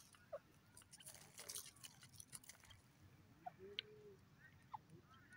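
Near silence with faint scattered clicks and crunches from a grey francolin pecking at dry, stony soil.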